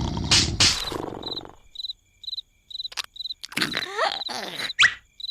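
Cartoon soundtrack: a loud rough noise with two sharp bursts fades out in the first second and a half. Then cricket chirping follows, even short chirps about three a second, broken by a few squeaky gliding cartoon sounds and a quick rising whistle near the end.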